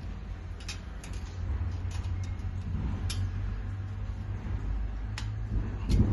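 Screwdriver and pliers tightening a small bolt and nut on a gold-plated iron arch frame: scattered sharp metallic clicks and light creaks as the tools work the fastener, with a louder knock near the end.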